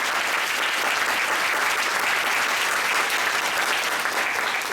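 Audience applauding steadily in a lecture hall, the clapping dying away just after the end.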